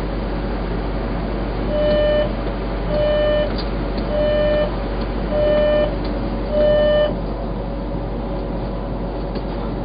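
Ampang Line light-rail train's door-closing warning sounding five evenly spaced beeps, each about half a second long, one every second or so, over the steady hum of the train standing at the platform.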